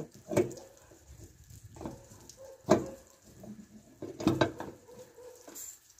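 Metal clacks and knocks as a truck's air-brake palm coupling (gladhand) on a coiled trailer air hose is handled and pressed onto its coupling head. There are three sharp knocks, the loudest about two and a half seconds in.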